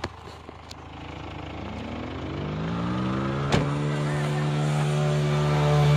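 A motor vehicle's engine rising in pitch as it accelerates and growing steadily louder as it comes closer, then holding a steady drone. There is a single sharp click about three and a half seconds in.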